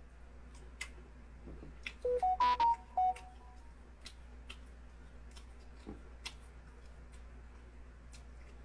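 A quick run of about half a dozen short electronic beeps at different pitches, like a phone's alert or keypad tones, about two seconds in. Scattered faint clicks sound around it.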